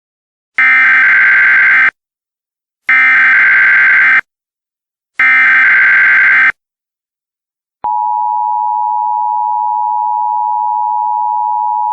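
Emergency Alert System header: three bursts of SAME data tones, each just over a second long with about a second between them. About eight seconds in comes the steady two-tone EAS attention signal, announcing an emergency alert.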